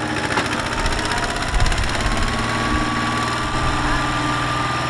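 Single-cylinder Kubota diesel engine of a small farm tractor running steadily, with a thin whine that slowly rises in pitch.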